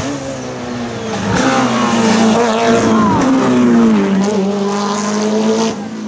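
Mitsubishi Lancer Evolution hill-climb car's turbocharged four-cylinder engine at full throttle as the car comes up the course and passes close by. There is a gear change about a second in, then the engine note climbs and drops away as the car goes past.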